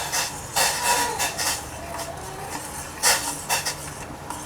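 A metal spoon stirring a pot of boiling herbal decoction and clinking against its sides now and then, loudest about three seconds in.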